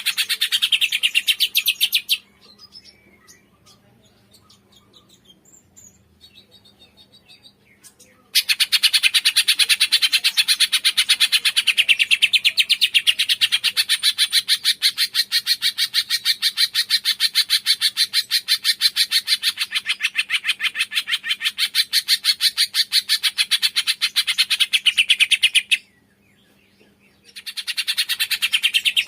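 Cungkok songbird singing a rapid, fast-repeating chatter in long bouts. The song breaks off about two seconds in, leaving only faint chirps, starts again around eight seconds in, and pauses briefly near the end before resuming.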